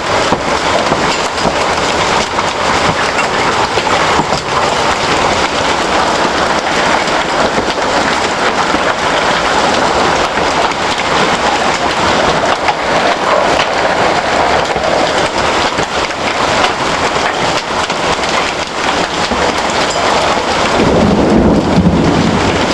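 Large hailstones pelting down in a heavy hailstorm: a loud, unbroken clatter of countless impacts blending into a hiss. A deeper rumble swells in near the end.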